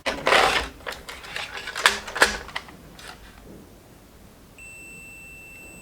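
Clicks and handling rustle of test probes on a circuit board. About four and a half seconds in, a multimeter's continuity beep starts as a steady high tone and holds, showing that the capacitor under test is shorted.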